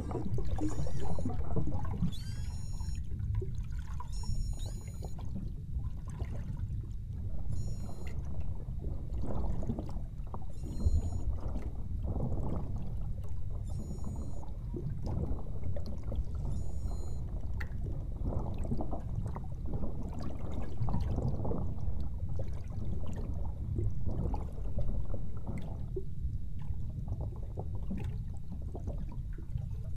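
Underwater sound of rushing, gurgling water, with beluga whales chirping and squealing in short high calls through the first half and clicking throughout.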